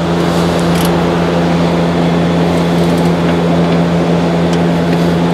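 Steady machine hum: a constant low drone with a few higher steady tones over an even rushing noise, unchanging throughout.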